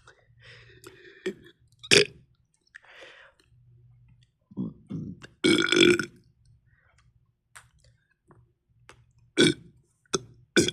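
A person burping repeatedly, about half a dozen separate burps of varying length. The longest and loudest comes near the middle, with short ones before and after it.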